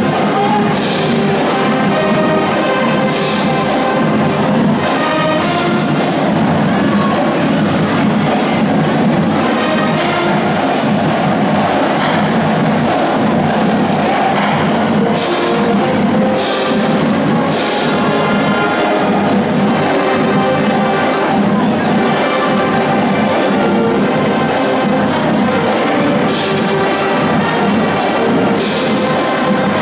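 A marching band playing: trumpets and sousaphones over a drumline of bass drums keeping a steady beat.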